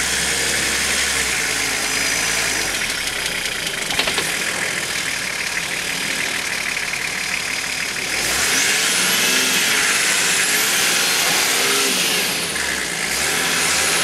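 Nissan Patrol's engine running at crawling revs as the 4x4 climbs over a loose gravel mound. It gets louder about eight seconds in.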